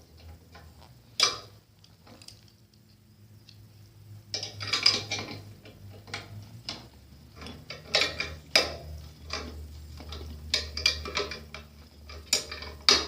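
Hand tools clinking and knocking against the metal of a dune cycle's front end as it is being taken apart: irregular sharp metallic clicks and clanks, with a quieter stretch of about two seconds near the start, over a low steady hum.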